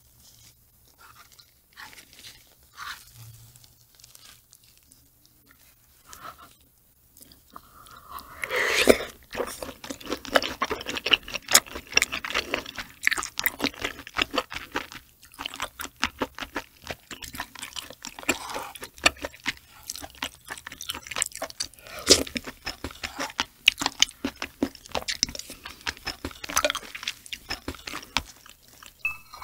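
Close-miked mouth sounds of someone eating octopus eggs: wet chewing with many sharp clicks and crunchy smacks, dense from about eight seconds in. Before that there are only a few faint, scattered clicks.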